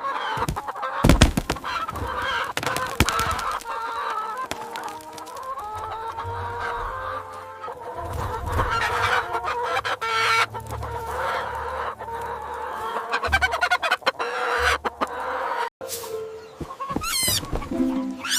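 A flock of chickens clucking continuously, with a sharp, loud thump about a second in and an intermittent low rumble underneath.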